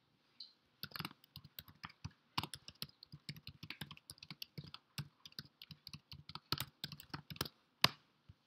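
Typing on a computer keyboard: a quick, uneven run of key clicks from about a second in, ending with one louder keystroke near the end.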